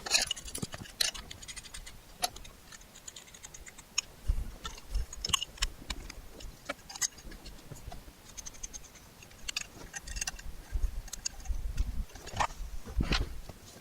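Irregular light metallic clicks and clinks of small hardware and tools being handled, with a few dull thumps, the loudest about a second from the end.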